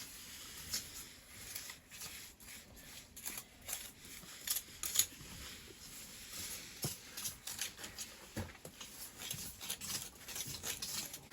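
Light, irregular scraping and clicking of hand tools working mortar against stone.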